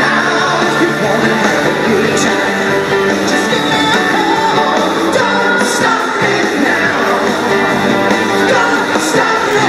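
A rock song with singing and guitar, playing steadily.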